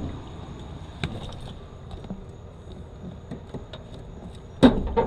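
A faint click about a second in, then a loud clanking knock about four and a half seconds in: the car hood popping up under the weight of a pry bar hung on it.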